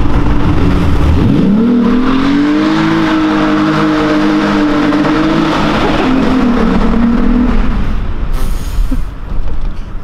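VW Golf Cabrio's VR6 six-cylinder engine revving hard under full throttle. Its pitch climbs steeply for about two seconds, holds high and steady, then falls away as the throttle is lifted near the end. Heard from inside the car while passing under a bridge.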